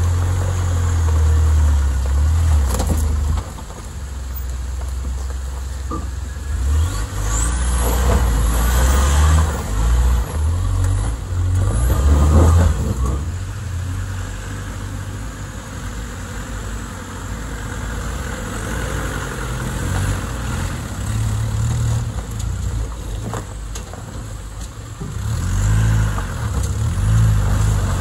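Off-road 4x4's engine running as it drives along a narrow lane, its low rumble rising and falling with the throttle, with a louder spell of noise from about eight to thirteen seconds in.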